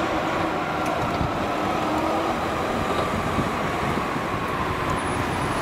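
Ichibata Electric Railway 3000-series electric train (car 3007, a former Nankai 21000-series car) running along the track, a steady rumble with a whine that slowly drops in pitch.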